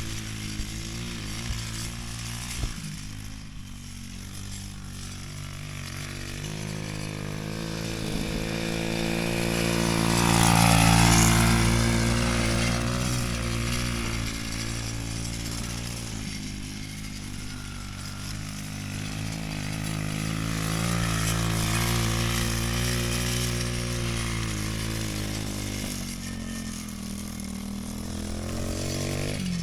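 Small off-road vehicle engine running steadily while pulling a tire on a rope, louder as it comes closer about ten seconds in and again around twenty seconds.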